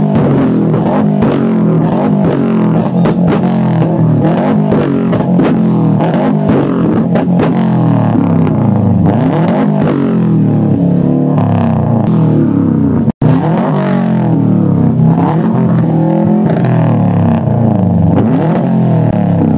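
Turbocharged flat-four of a Subaru Impreza WRX STI, through a Blitz Nür-Spec R exhaust, held on a Bee*R two-step rev limiter. It drones at a fixed high rev with a wavering pitch, broken by repeated sharp pops and bangs as the limiter cuts ignition and unburnt fuel fires in the exhaust, throwing flames.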